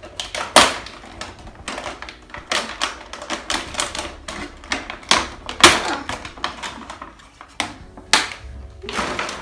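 Stiff, ridged plastic plant sleeve crackling and crinkling as a potted plant is worked out of it: a fast, irregular run of sharp clicks and crackles, with louder snaps about half a second in, near the middle and near the end.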